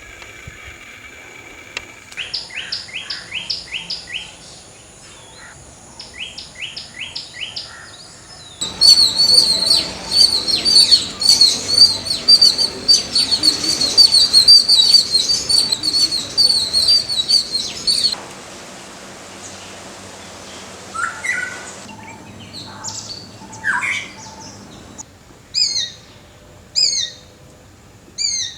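Birds calling in several separate stretches that change abruptly. First come two short series of quick down-slurred notes, then about nine seconds of loud, dense, rapid chirping. Near the end come a few rising notes and several short, clear chirps spaced about a second apart.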